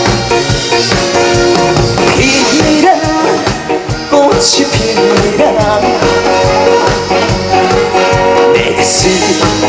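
Backing music of a Korean trot song with a steady drum beat, played between the sung lines.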